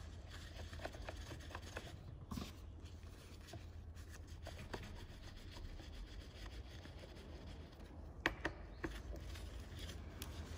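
Faint rubbing and small metal clicks as the housing is fitted onto a TRUMPF TPC165 panel cutter and tightened with a hand key, with a few sharper clicks near the end, over a steady low hum.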